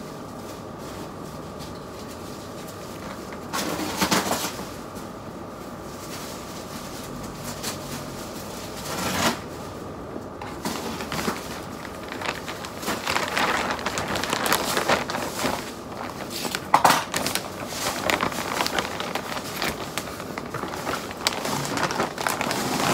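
Clear plastic bag crinkling and rustling as a folded tweed jacket is handled and slid into it. It comes in two short rustles at first, then runs almost without a break through the second half.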